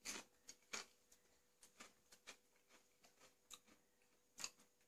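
Faint, irregular crunches of a person chewing a crisp potato chip, a few crackles a second with short gaps of quiet.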